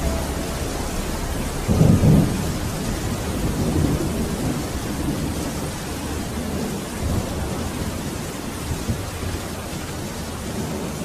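Thunderstorm sound effect: steady rain with a loud rumble of thunder about two seconds in, then lighter rumbles.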